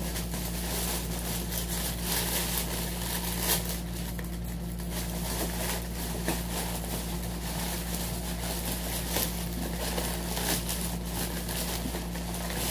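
Plastic packaging crinkling and rustling in irregular handfuls as a grey poly courier bag is torn and pulled open and a clear plastic bag is drawn out, over a steady low hum.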